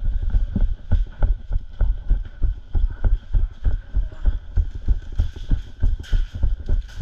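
Rapid low thumps, about three a second, with a faint hiss above: the jolting footsteps of a player running with a body-worn camera.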